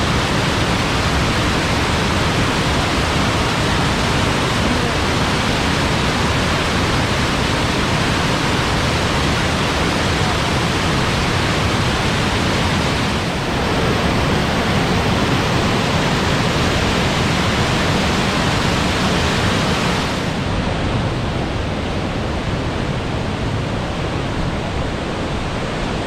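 Waterfall, a steady rush of falling water heard close up. Its tone shifts slightly about 13 seconds in and again about 20 seconds in, going duller at the second change.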